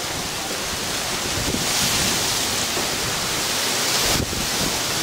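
Wind buffeting the camera's microphone: a steady rushing hiss with uneven low rumbling, dipping briefly about four seconds in.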